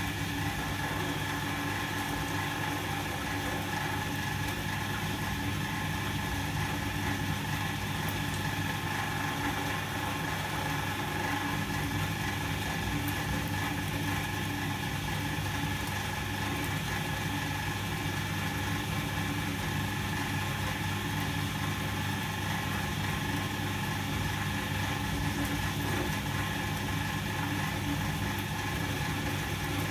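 Volga-8R activator washing machine running in its wash cycle: the electric motor and activator hum steadily without a break.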